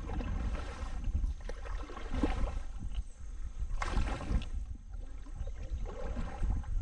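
Kayak paddle strokes dipping and splashing in the water, several uneven strokes, over a steady low rumble of wind on the microphone.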